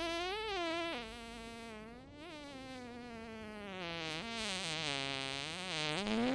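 Long, drawn-out fart sound effect: one continuous buzzing tone of about six seconds that wavers and sinks in pitch, then rises again near the end.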